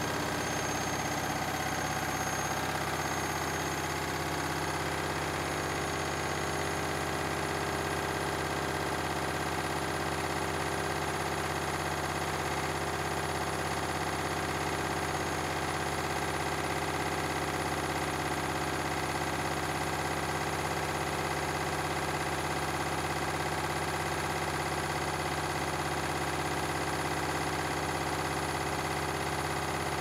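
Candy Grand'O Vita washing machine in its drain and spin programme, its drum motor running at a steady spin with a constant hum and a high motor whine.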